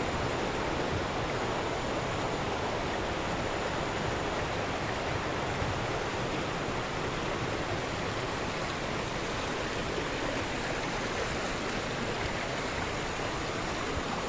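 The Tuila River in flood, its muddy water rushing with a steady, even noise.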